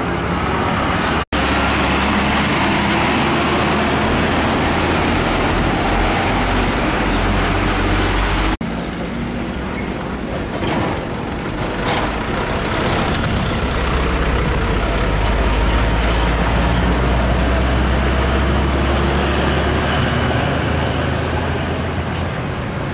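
Heavy diesel trucks pulling trailers driving past on a highway: a deep, steady engine drone with road and traffic noise. The sound cuts out abruptly for a moment about a second in.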